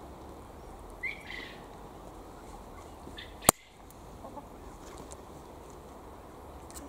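Pliers snipping through a wire coat hanger: one sharp snap about halfway through. A hen gives a couple of short clucks before it.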